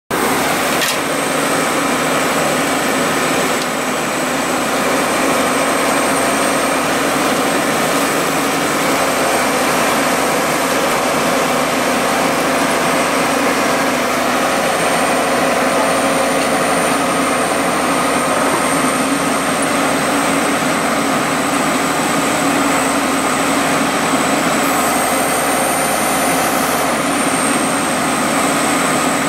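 Horizontal directional drilling rig's engine and hydraulics running steadily, with a thin high whine held above the engine noise.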